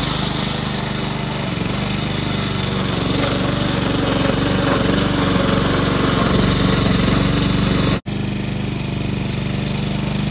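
Gas-powered walk-behind lawn mower engine running steadily while being pushed through tall grass, with a very brief break in the sound about eight seconds in.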